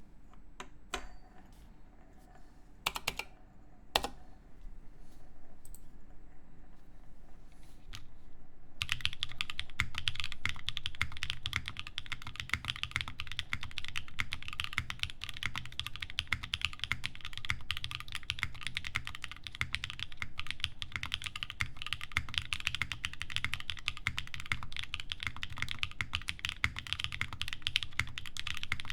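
Typing on a plateless Nascent mechanical keyboard with lubed SOTC switches and GMK keycaps. A few separate keystrokes at first, then from about nine seconds in, steady fast typing.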